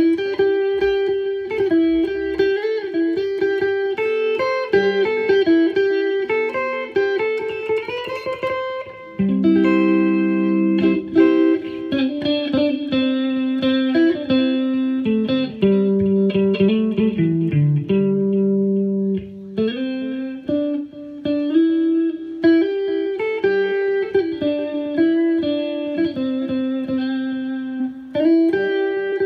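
Fender Stratocaster electric guitar played through a Line 6 POD HD500X multi-effects modeler: a melodic line of held notes, with a bend rising in pitch about eight seconds in.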